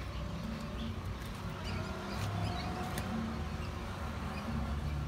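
Faint, scattered chirping of swallows flocking in a cenote, over a low rumble.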